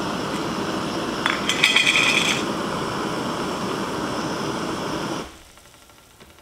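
Upright gas canister stove burning steadily under a heat-exchanger pot of boiling water. A metal pot lid clinks and rings as it is set down about a second and a half in. About five seconds in the valve is shut, the burner noise cuts off suddenly, and faint ticking is left.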